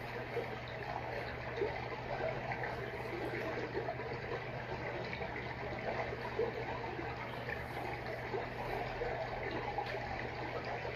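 Freshwater aquarium water trickling and bubbling steadily, with a low steady hum underneath.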